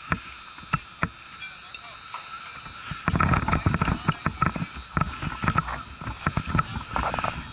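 Rustling, scraping and knocking on the microphone of a catcher's body-worn camera as the catcher moves, loud and dense from about three seconds in. Before that, only a few scattered clicks over a faint steady high tone.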